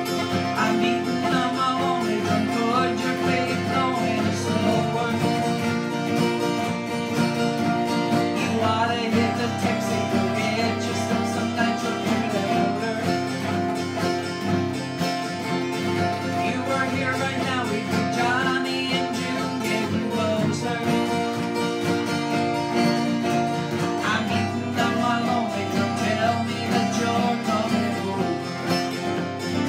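Two acoustic guitars strummed together, with a woman singing over them in phrases.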